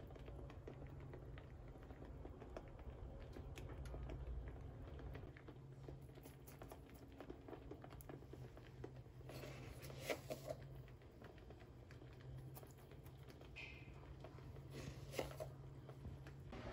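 Faint room tone with a steady low hum and scattered small clicks and pattering; two slightly louder clusters of clicks come about ten seconds in and again near the end.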